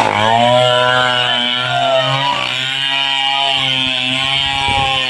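Two-stroke chainsaw engine running at a steady, fairly high speed, its pitch dipping briefly at the start and wavering slightly partway through.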